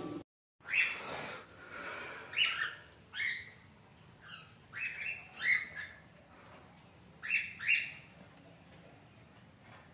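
Caged cockatiels giving short, sharp calls that fall in pitch, about a dozen scattered through, several in quick pairs, stopping about two seconds before the end.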